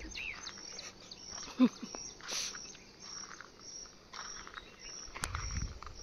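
Birds calling and insects chirping among grass and trees. A thin high chirp repeats about twice a second, and a short, louder falling call comes about a second and a half in.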